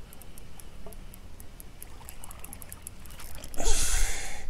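Spinning reel being cranked with a light, fast ticking as a hooked cutlassfish is wound in. About three and a half seconds in comes a loud burst of splashing, trickling water as the fish is lifted out of the sea.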